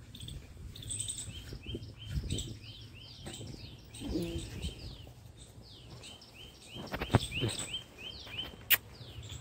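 A small bird calling outdoors, a long run of short, quickly repeated high chirps, with a few sharp clicks near the end.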